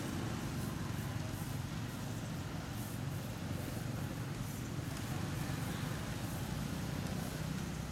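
A steady low rumble of outdoor background noise, even throughout with no distinct events.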